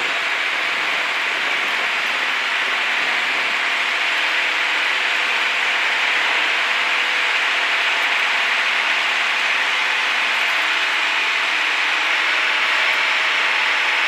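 Cessna 152's four-cylinder Lycoming O-235 engine and propeller at full takeoff power, heard from inside the cabin as a steady rushing noise with a faint engine hum beneath, growing slightly louder during the takeoff roll.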